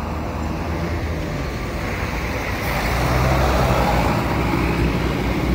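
A bus's engine and tyre noise growing louder about two to three seconds in as it draws close, then staying loud.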